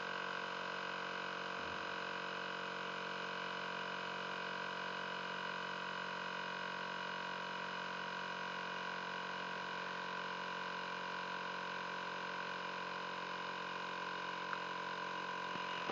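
Portable tyre inflator pump running with a steady hum, filling a car tyre from zero pressure.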